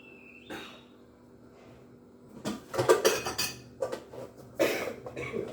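Metal pots and kitchen utensils clattering and clanking: one knock about half a second in, then a run of irregular clangs and rattles from about two and a half seconds in.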